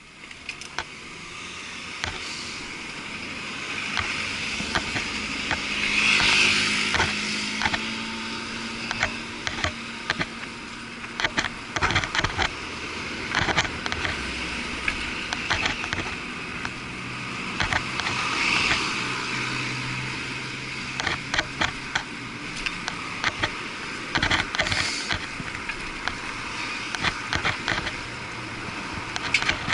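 Muffled road traffic heard while cycling beside a busy street, with cars swelling past several times, and frequent sharp knocks and rattles. The sound is dulled by the action camera's waterproof housing.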